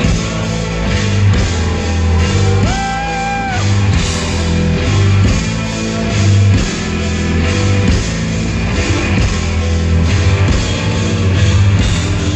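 Live rock band playing loudly: heavy bass and drums on a steady beat, with electric guitar. A single note is held for about a second, roughly three seconds in.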